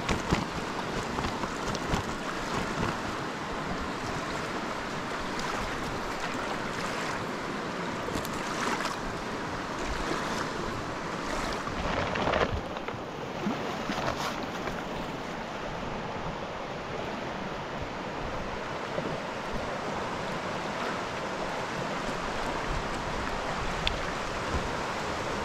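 Steady rush of flowing river water, with a few short knocks, one near the start and one about halfway through.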